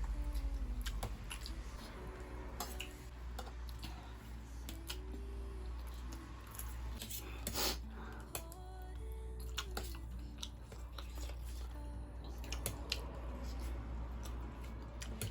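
Eating sounds: scattered sharp clicks of utensils on dishes and chewing, with one longer noisy burst about halfway through.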